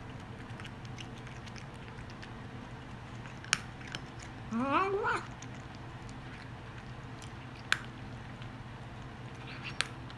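Korean shorthair cat eating, with a few sharp crunches or clicks and, about four and a half seconds in, one short rising call made while it eats. This is the strange noise the owner says it has made at every meal since its food was changed, for reasons the owner doesn't know.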